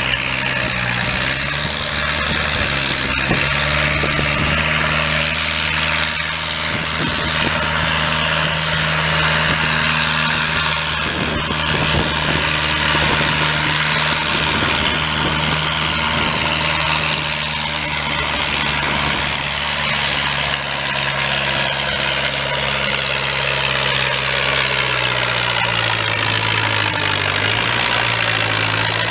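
Massey Ferguson tractor's diesel engine running hard under heavy load as it drags a weight-transfer pulling sled, its pitch holding steady and then sagging near the end as the load builds.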